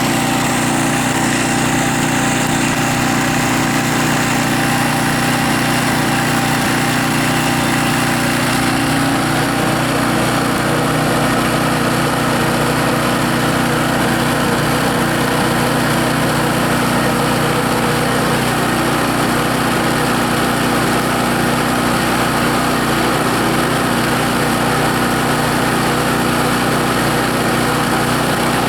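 Briggs and Stratton engine of a small Coleman portable generator running steadily. About nine seconds in, its note changes as a load is put on it during the load test: the heavy load makes the engine bog down.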